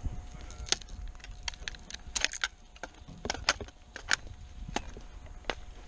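A dozen or so sharp clicks and snaps at irregular intervals, typical of airsoft shots and BBs striking nearby, over a steady low rumble.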